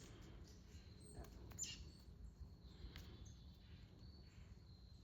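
Near silence: faint outdoor background hiss, with one short faint chirp about a second and a half in.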